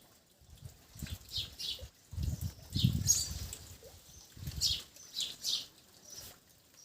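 Alexandrine parakeet giving a scattered series of short, high chirps, with low rumbling noise underneath during the first five seconds.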